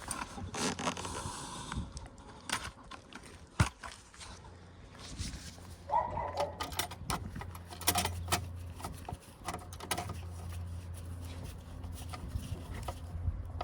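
Clicks, taps and clatter of a screwdriver and small metal parts being handled during car radio removal and bracket fitting, with one sharp knock about three and a half seconds in and a low hum underneath.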